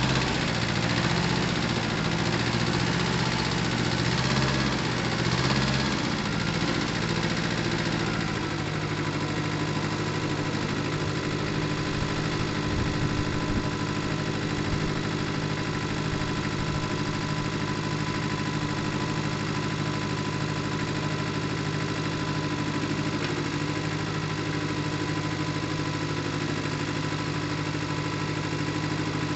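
Mitsubishi MT372 compact tractor's two-cylinder diesel engine running. It is louder and uneven for about the first eight seconds, then settles into a steady idle.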